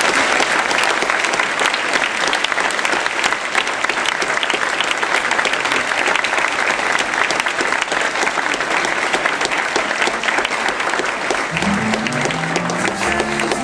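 Audience applauding steadily. Music comes in near the end.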